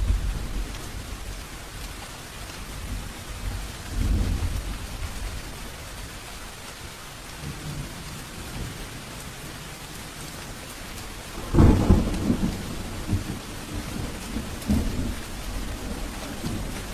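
Steady rain falling through a thunderstorm. Low thunder rumbles come at the start and again about four seconds in. About eleven and a half seconds in, a louder, sudden peal of thunder rolls on in rumbles for several seconds.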